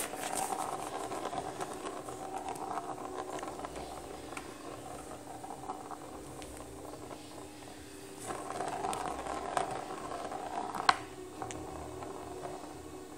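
Plastic ball rolling around the track of a round cardboard cat scratcher toy as a kitten plays, in two spells of rolling, with a sharp click about eleven seconds in.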